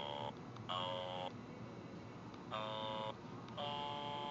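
Mattel Sing-a-ma-jig plush toy singing through its electronic voice chip: four held synthetic sung notes with short gaps between them, the last and longest starting near the end.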